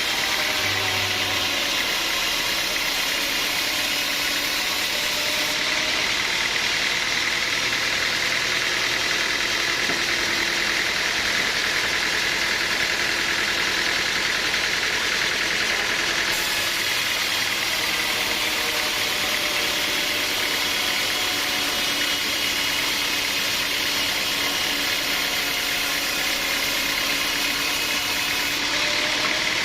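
Sawmill machinery running steadily, a continuous mechanical drone with no pauses or sudden strikes.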